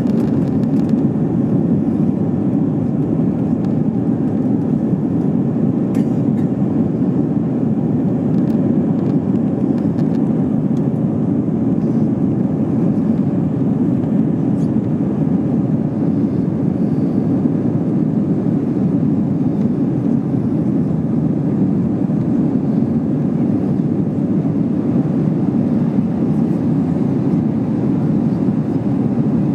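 Airbus A320-232 cabin noise during the climb after takeoff: its IAE V2500 turbofans and the rushing air make a steady, low, even rumble heard from a seat beside the wing.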